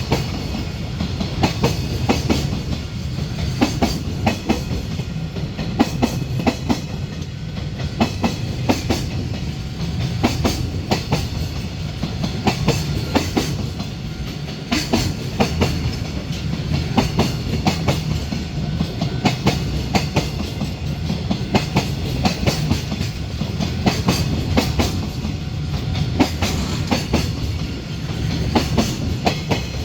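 Container freight train's wagons rolling past steadily, wheels clacking over rail joints with a continuous low rumble.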